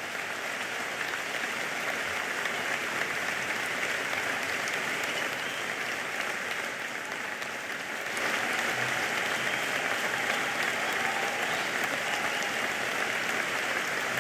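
Audience applauding steadily, growing louder about 8 seconds in.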